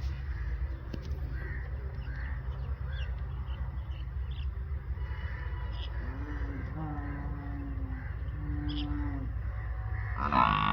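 Buffalo lowing: two drawn-out low calls about midway, then a louder call starting just before the end. Small birds chirp faintly in the first few seconds over a steady low rumble.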